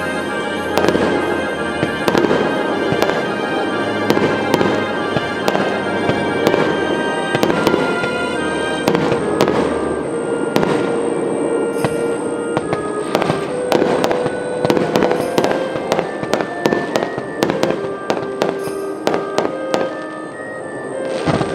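Aerial fireworks bursting, with many sharp bangs and crackles in quick succession. Music plays throughout alongside them.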